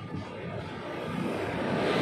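Passing train approaching, its rumble growing steadily louder.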